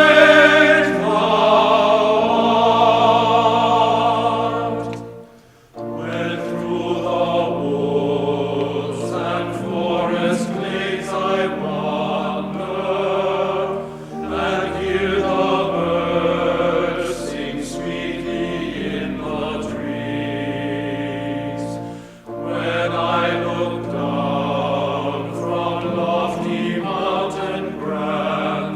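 Choral music: several voices singing sustained notes with vibrato. It breaks off briefly about five and a half seconds in and dips again shortly after twenty-two seconds.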